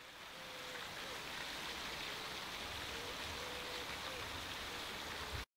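A steady rushing hiss of background noise, fading in over the first second and cutting off abruptly near the end, with a faint thin wavering whistle underneath.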